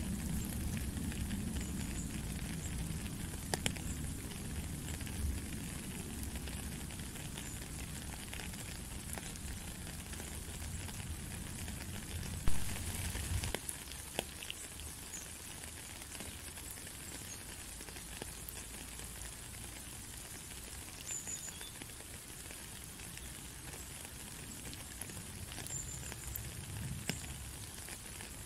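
Steady rain falling: a fine, even hiss with scattered sharp drop ticks. A low rumble beneath it stops suddenly about halfway through.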